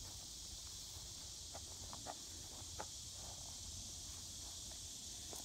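Faint steady drone of summer insects, with a few soft footsteps on grass about two seconds in.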